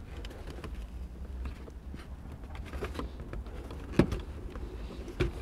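Faint handling noises over a low steady rumble, with a sharp click about four seconds in and a softer one just before the end: a plastic carpet retaining clip being worked free.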